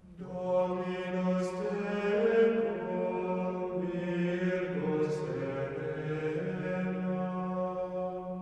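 Slow sacred vocal chant as background music over a held low note. A new phrase swells in at the start and the voices move slowly while the low note stays steady.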